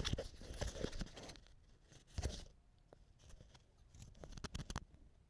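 Faint, scattered sharp clicks and knocks in bunches: a cluster in the first second, a short scratchy burst a little past two seconds, and another cluster of clicks near the end.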